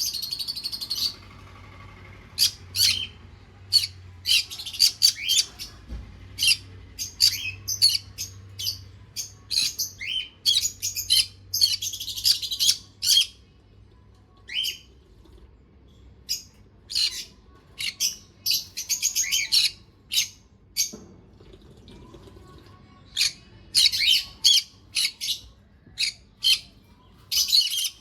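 Small pet parrots chirping: quick, high-pitched chirps and short squawks in bursts a few seconds long, separated by quieter pauses.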